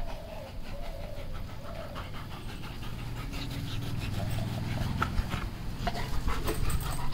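Wet Labrador panting, then giving a drawn-out low yawn with its mouth wide open about halfway through.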